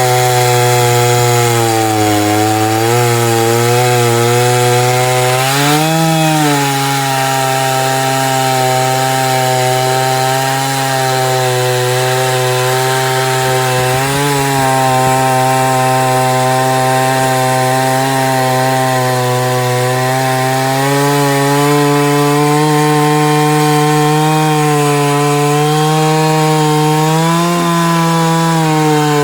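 Chainsaw on an Alaskan chainsaw mill running at full throttle, ripping lengthwise through a log. The engine note holds steady under load, with a few brief dips in pitch.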